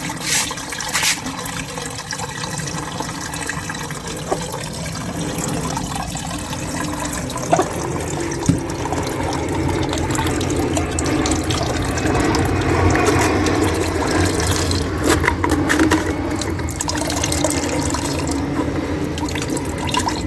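Pounded pawpaw leaf and aloe vera juice being poured and strained through a filter: a steady run of splashing liquid, with a few short knocks along the way.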